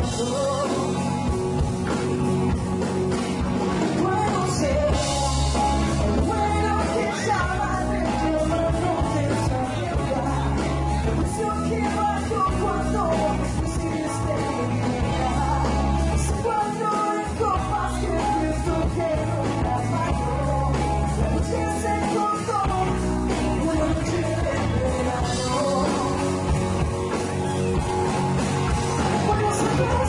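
Live rock band playing: electric guitar and drums, with a woman singing.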